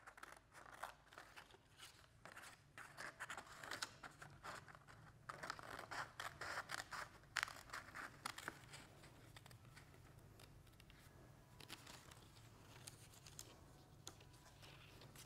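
Scissors cutting paper in a quick, irregular run of small snips and rustles that thins out after about nine seconds, over a faint low room hum.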